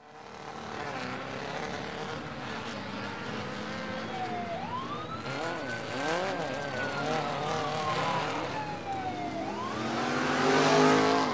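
Added vehicle engine sound effects for a toy race: a steady engine drone with revs whose pitch climbs and falls, one long rev rising about four seconds in and sinking slowly over the next five seconds, and a louder rev near the end.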